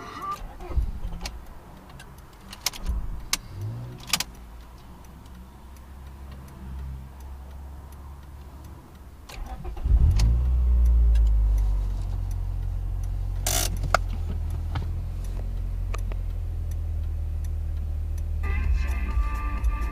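Honda Prelude's four-cylinder engine catching about ten seconds in with a loud burst, flaring briefly, then settling into a steady idle. Background music fades in near the end.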